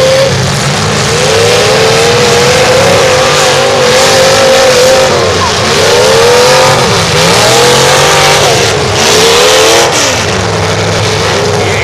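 Demolition derby cars' engines revving hard at full throttle, their pitch rising and falling again and again as the cars spin their wheels in the dirt.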